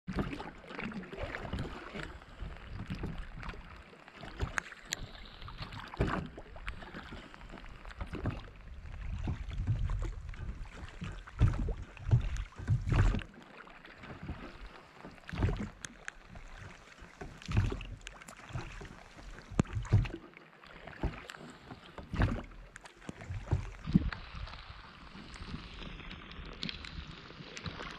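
Oars of an inflatable pontoon boat being rowed on a lake, with irregular low thumps and knocks over a steady hiss of rain falling on the water.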